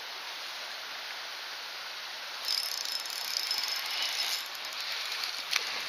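Fishing reel turning, a mechanical whir that starts about two and a half seconds in with a faint high whine, over a steady hiss.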